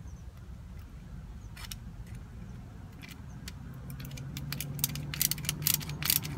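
Spectre hose clamp, a worm-drive clamp housed in an anodized aluminum cover, being turned with a flathead screwdriver: small metallic clicks, a few scattered at first, then coming quickly over the last two seconds as the clamp tightens.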